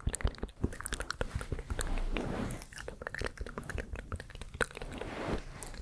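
ASMR mouth sounds close to the microphone: a rapid run of wet clicks and smacks, with a soft hiss about two seconds in and again near the end.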